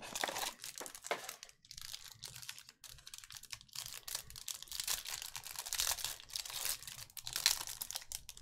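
Plastic trading-card pack wrapper crinkling and tearing as it is pulled open and handled, an irregular crackle of small clicks that grows louder for a few seconds past the middle.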